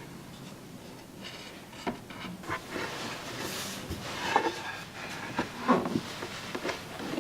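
Wooden knocks, clicks and light scraping from a wooden folding chessboard and its pieces being handled, with several sharp knocks in the second half.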